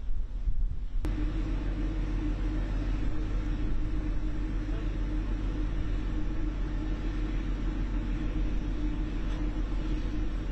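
Wind buffeting the microphone for about a second, then a steady low rumble and hum with a droning tone from the machinery of the Turkish navy ship TCG Bayraktar, heard from its deck.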